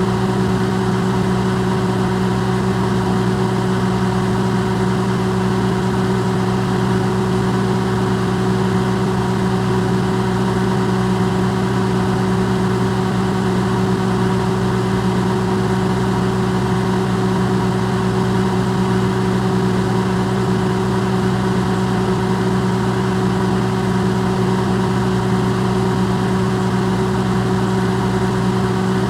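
Electrolux microwave oven running, amplified: a steady, unchanging hum with an even whir over it, like a continuous drone.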